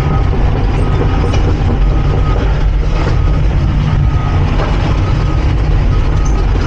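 Cat 349 excavator travelling on its steel tracks: the diesel engine runs steadily under load while the track links clank and rattle.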